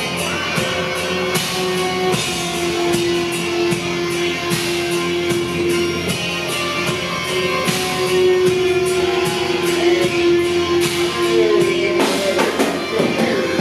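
Industrial metal band playing live: guitars and a drum kit with frequent cymbal hits over one long held note.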